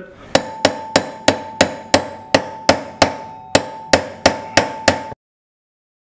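Hammer tapping a chisel against the stuck pulsator of a top-loader washing machine to work it loose: about fourteen gentle, even strikes, roughly three a second, each with a short metallic ring. The sound cuts off abruptly near the end.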